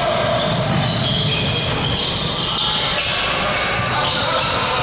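Basketball game sound in a gym: a ball bouncing on the court amid indistinct voices of players and spectators, echoing in a large hall.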